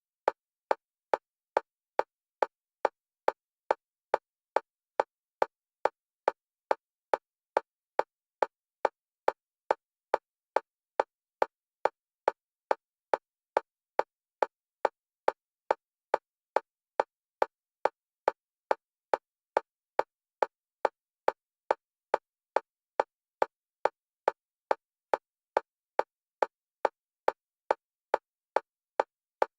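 Metronome clicks for EMDR bilateral stimulation, alternating between the left and right stereo channels: short, evenly spaced clicks a little over two a second, with silence between them.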